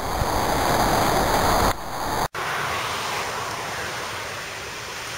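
Steady rushing noise, cut off abruptly about two seconds in and then carrying on quieter.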